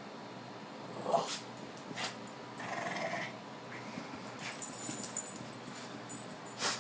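Two dogs playing rough over a toy basketball: short dog vocal noises about a second in and again near three seconds, among scuffling and sharp knocks of the tussle.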